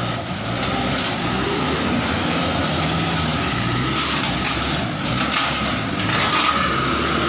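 Hino light truck's diesel engine running steadily under the weight of a load of utility poles as the truck crawls over a rocky dirt track, coming closer.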